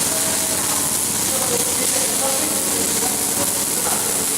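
Welding arc running with a steady, loud crackling hiss.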